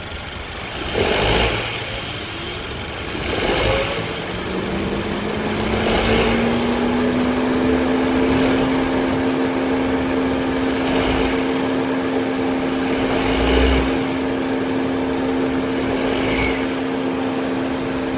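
Honda Civic RS 1.5-litre turbo four-cylinder engine running, swelling in level every couple of seconds, with a whine that rises about four seconds in and then holds steady. This is the engine-bay noise under diagnosis, which a new belt is expected only to change slightly, not cure.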